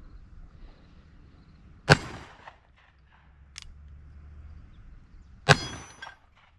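Two shots from a .36 caliber 1851 Navy cap-and-ball revolver firing black powder, about three and a half seconds apart, the second followed by a brief metallic ring.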